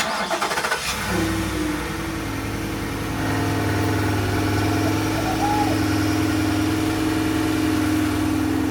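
Ford F-150's 5.0 Coyote V8 starting: a second of cranking, then it catches and settles into a steady idle, rising slightly about three seconds in as on a cold-start fast idle.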